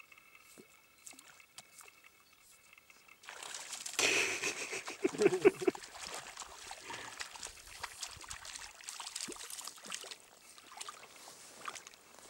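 A perch striking a surface popper fly: sudden splashing at the surface about four seconds in, loudest around five seconds, then continued splashing and sloshing as the hooked fish is pulled across the water, easing off near the end.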